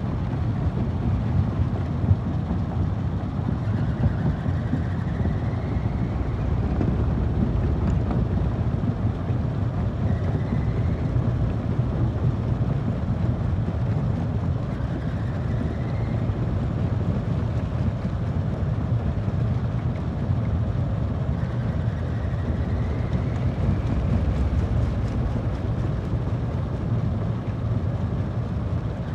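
Stone crusher running under load: a steady low machine drone with a dense crackle and rattle of rock being broken. A faint rising whine recurs every five or six seconds.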